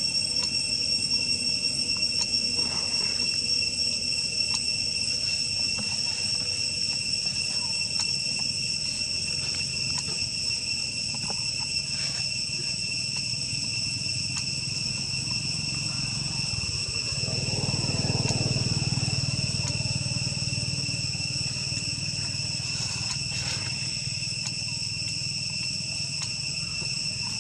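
Steady, high-pitched insect drone, a chorus of several unbroken tones with no break. A low rumble swells and fades about two-thirds of the way through.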